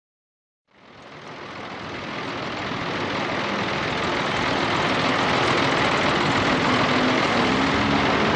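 Street traffic noise with a tram running toward the listener on curved track among cars, fading in about a second in and growing louder over the next few seconds before levelling off.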